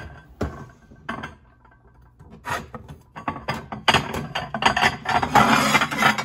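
A kitchen drawer pulled open with a few knocks and clicks, then a stack of square plates clattering and scraping against each other as plates are lifted out, loudest from about four to six seconds in.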